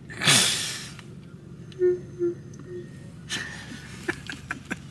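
A man laughing breathily: a loud wheezy exhale at the start, then three short hummed laugh sounds about two seconds in, with a few small clicks near the end.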